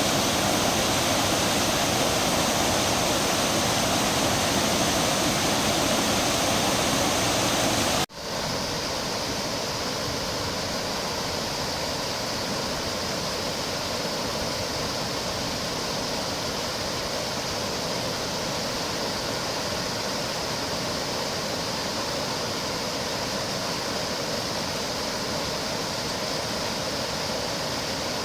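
Broad, low waterfall, about 6 m high and 50 m wide, pouring steadily over rock: a continuous rush of falling water. About eight seconds in the sound cuts abruptly to a slightly quieter rush of a different tone.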